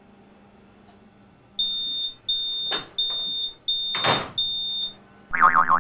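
A run of five high electronic warning beeps from a malfunctioning office photocopier, each about half a second long, signalling a fault such as a paper jam. A loud burst of hiss comes about four seconds in, as the machine gives off smoke, and a wavering, warbling tone starts near the end.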